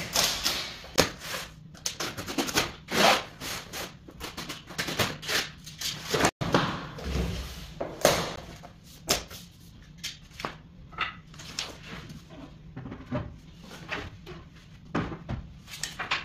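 Large flat-pack cardboard box being cut open with a box cutter and unpacked: irregular scraping, rustling and tearing of cardboard, with sharp knocks as the furniture panels inside are slid out and set down.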